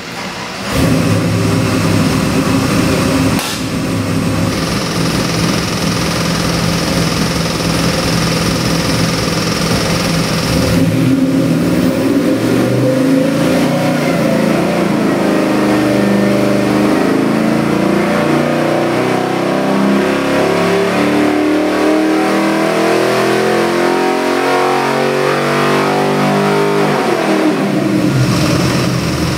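A 427 cu in LS3 stroker V8 with Holley Sniper EFI running on an engine dyno. It runs loud and steady at first, then from about 11 seconds in its pitch climbs steadily over some 15 seconds in a dyno pull under load. Near the end the revs fall away sharply as the pull ends.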